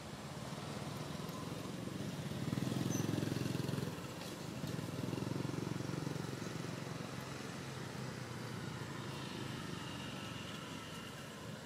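A low engine hum from a distant vehicle, swelling louder about two seconds in and again near the middle, then settling.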